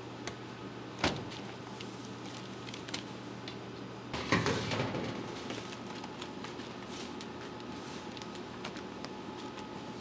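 Bakery work-bench sounds over a steady machine hum: a sharp knock about a second in, then a louder clattering knock a little after four seconds that fades over about a second, with light ticks and scrapes between.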